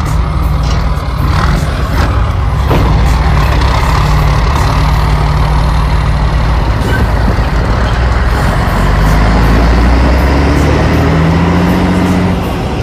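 Scania 113H truck's straight-six diesel running loud and deep through a straight-through exhaust pipe as the truck moves off, its note rising and falling with the throttle. There are a few sharp cracks in the first three seconds.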